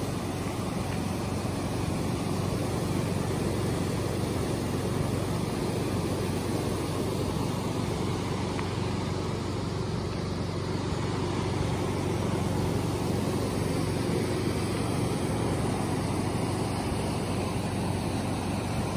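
Fast river rushing over rapids, a steady even noise of moving water.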